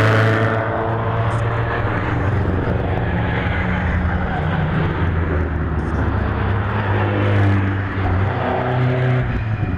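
Competition car engine on a hill climb, heard as a steady drone just after a loud pass fades, its pitch shifting slightly a few times near the end.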